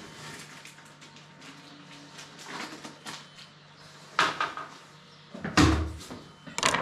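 A few sharp knocks and clatter from handling, the loudest about four, five and a half and near seven seconds in, over a faint steady hum.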